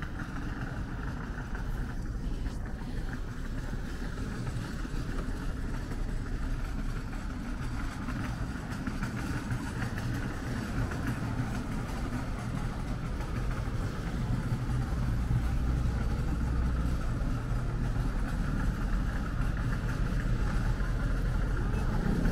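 Steady low rumble of engines with a faint hum, getting louder about two-thirds of the way through.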